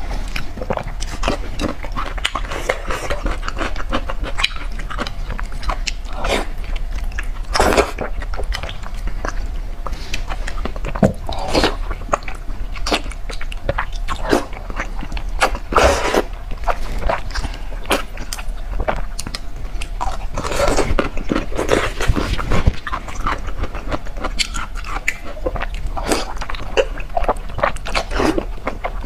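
Close-miked wet chewing, sucking and lip-smacking of soft, fatty braised pork intestine fat (鸡冠油), a steady stream of small sticky clicks and smacks with a few louder, longer slurps about 8, 16 and 21 seconds in.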